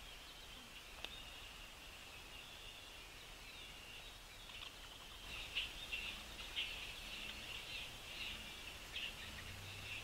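Small birds chirping, a steady high chatter with sharper, louder chirps coming in about halfway through.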